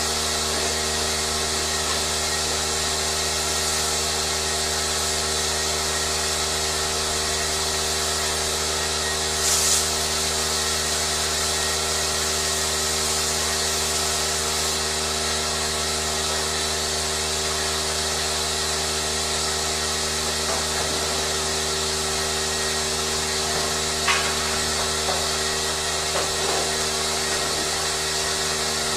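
A motor-driven machine running steadily with a constant hum and hiss. There is a brief burst of hiss about nine seconds in and a sharp click near the end.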